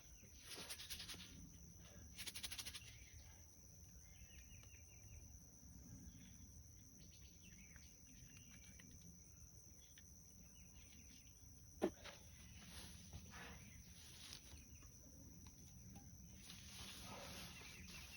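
Near silence outdoors: a steady high insect drone with a few faint bird chirps, and one sharp click about twelve seconds in.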